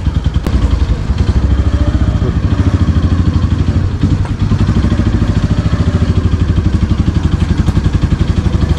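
Motorcycle engine running at low, steady revs as the bike rolls slowly along, its exhaust pulses beating in a quick, even rhythm.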